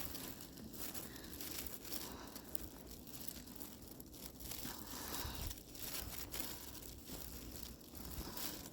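Footsteps crunching through snow at a steady walking pace, one soft crunch per step.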